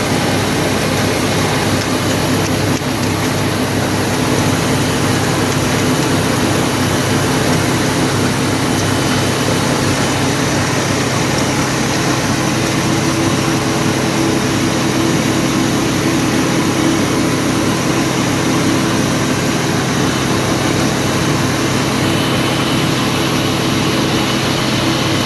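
Wheat grain grading and cleaning machine running steadily, a constant loud mechanical drone with a low hum.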